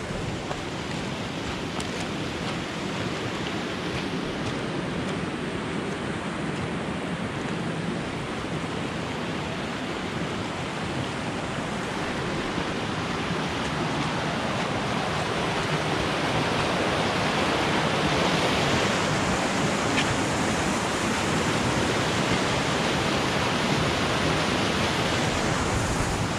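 Flash-flood water rushing down a rocky desert gully: a steady, noisy rush that grows louder in the second half.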